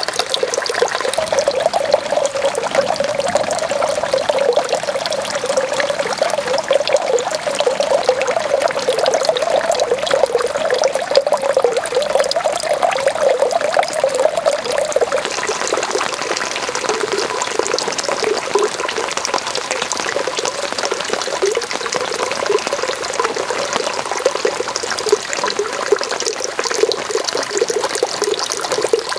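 Steady rain falling in a garden, with a continuous hiss of drops and the bubbling trickle of running water. About halfway the trickle eases a little and the higher hiss of the rain comes forward.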